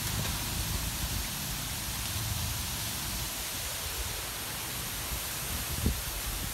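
Strong wind buffeting the microphone: a steady low rumble with a broad hiss over it, and a brief low thump near the end.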